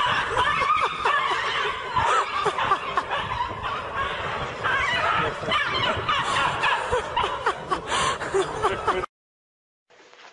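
People laughing and chattering at length, cutting off suddenly about nine seconds in, after which only faint room sound remains.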